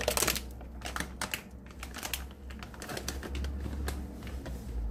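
Crinkly plastic snack bag being handled: a run of sharp crackles and taps over a low steady hum.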